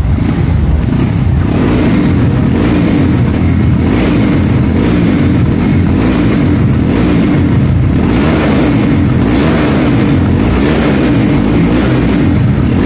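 Single-cylinder Honda motorcycle engine with a performance camshaft running loudly and steadily, its speed rising and falling slightly.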